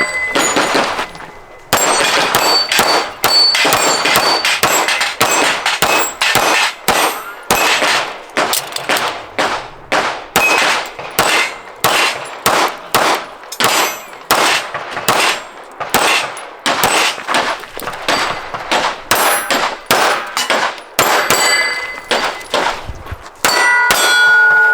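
Pistol shots fired in quick succession at steel targets, about one to two a second, with hits on the steel ringing with a clang. There is a brief lull about a second in.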